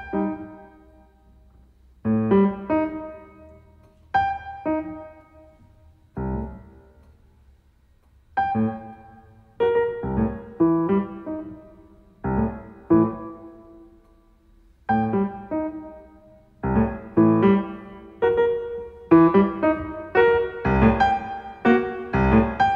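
Solo piano playing: short groups of struck chords and notes separated by brief pauses, each ringing out and fading, the groups coming closer together and denser toward the end.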